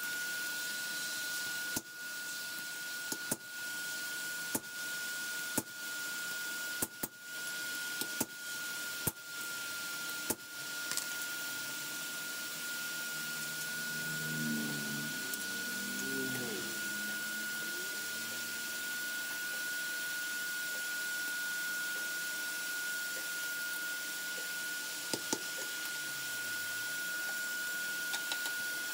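Steady whine and hiss of a forge's air blower, with about ten sharp knocks at uneven intervals over the first ten seconds.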